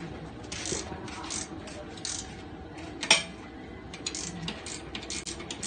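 Ratcheting ring wrench clicking in short runs as a bolt on a steel bracket of a pipe frame is tightened, with one louder sharp metal click about three seconds in.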